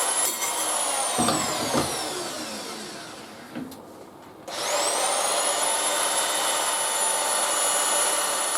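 High-speed electric power tool motor running with a high whine, released and spinning down with falling pitch in the first few seconds, then switched on again about halfway through and run steadily before winding down at the end.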